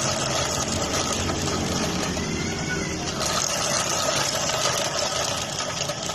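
Vespa scooter engine running steadily at idle with a light, fast mechanical rattle.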